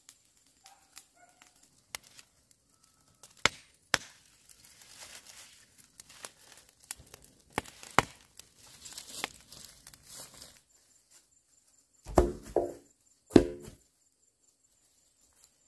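Dry bamboo leaves and brush crackling and snapping with sharp cracks for the first ten seconds, then two loud hollow wooden knocks with a short ring, bamboo poles dropped onto the ground.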